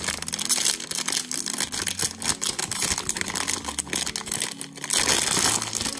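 Holographic foil packet crinkling continuously as hands squeeze and pull at it to open it.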